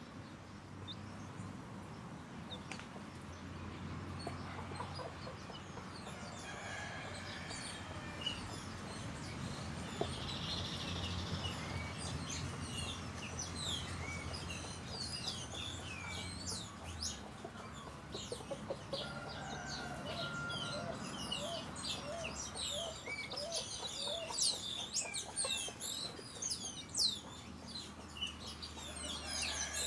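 Chickens clucking among many small birds chirping. The high chirps grow thicker and busier through the second half, and a low steady hum runs under the first half and stops about halfway through.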